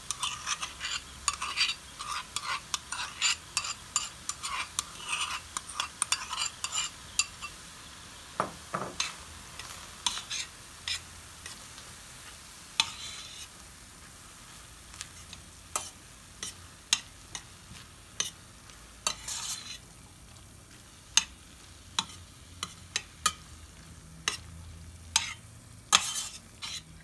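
Metal spoon stirring corn, mushrooms and mayonnaise in a stainless steel pan, with frequent clicks and scrapes against the pan, dense for the first eight seconds or so and sparser after. Under it a light sizzle of the mixture frying over the heat.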